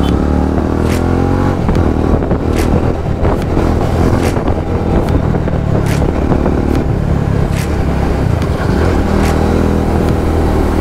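TVS Apache RR310's single-cylinder engine running through an aftermarket Akrapovic exhaust while riding in traffic, the revs rising and falling repeatedly as the throttle is opened and closed.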